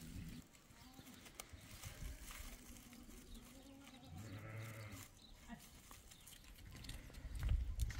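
A goat bleating once, about four seconds in, over faint rustling and handling of a woven plastic feed sack.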